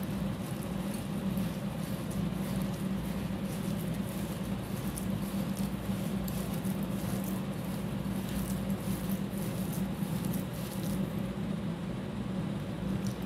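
Fingers squishing and kneading wet crushed slate pencil powder in a glass bowl, a continuous crackly, gritty squelching over a steady low hum.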